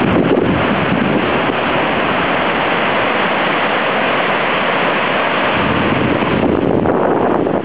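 Surf breaking and washing up on a sandy beach, a steady loud rush of noise, with wind buffeting the microphone.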